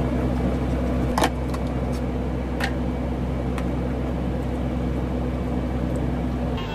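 Steady low hum of a vehicle engine running, with a few sharp clicks over it, the loudest a little over a second in.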